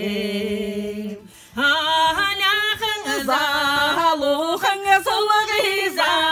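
A woman singing a song in Buryat, unaccompanied: a long held note, a short breath about a second in, then a moving melody with bending pitch.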